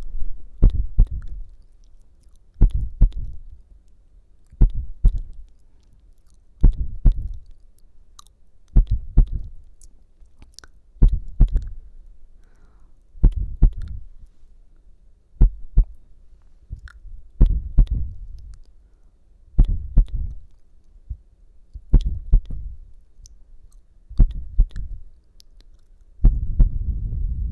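Imitated heartbeat for ASMR: a slow, regular pair of soft low thumps (lub-dub) about every two seconds, each with a faint click on top.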